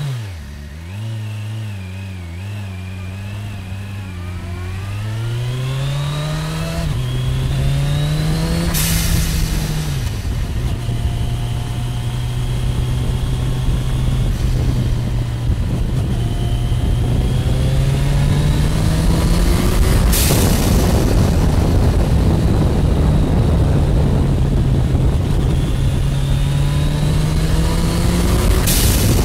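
Turbocharged Suzuki Hayabusa inline-four engine accelerating hard, its pitch climbing. Three times, about nine seconds in, about twenty and near the end, the blow-off valve lets out a sharp hiss as the throttle closes, and the engine note drops after each.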